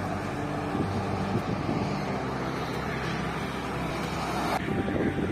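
Highway traffic passing at speed: cars and a lorry going by, tyre roar with a low engine drone. About four and a half seconds in, the sound changes suddenly: the hiss drops away and wind buffeting on the microphone takes over.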